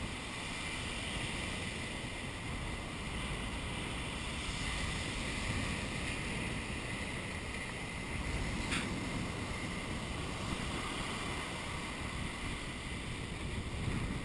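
Surf breaking on a sandy beach under steady wind noise on the microphone, with one short click about nine seconds in.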